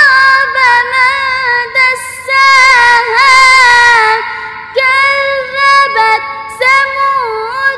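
A ten-year-old girl's voice reciting the Quran in melodic tajweed style into a microphone. She draws out long held notes with wavering ornaments and pauses briefly for breath a little past the middle.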